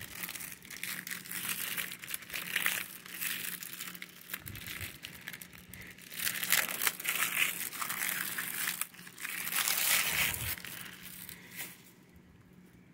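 Clear plastic shrink wrap being torn and peeled off a Blu-ray case, crinkling irregularly, then dying away near the end.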